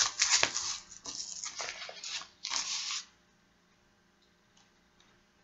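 Hook-and-loop (Velcro) strap of a manual blood-pressure cuff being pulled and pressed shut around a lower leg: several short ripping, rustling noises for about three seconds, then they stop. Near silence follows, with a few faint clicks.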